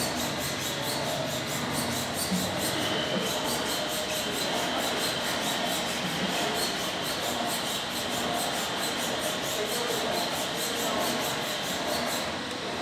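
T-handle hex key turning the end-cover bolts of a KTO 200 milking-machine vacuum pump tight, metal squeaking and rubbing. Behind it a steady hiss with a faint, fast, regular pulsing that stops shortly before the end.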